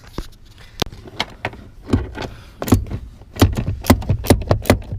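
Sharp metallic clicking and clinking of a hand wrench working the front seat-rail bolts loose on a Honda Civic, with a quick run of clicks, about five a second, in the second half.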